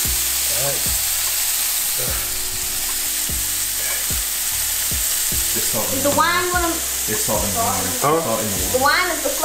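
Steak sizzling in a hot nonstick frying pan, a steady hiss.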